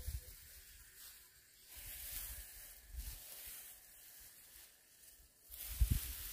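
Dry straw thatch rustling as it is gathered up by hand, in uneven swells, with a louder rustle and low thumps near the end.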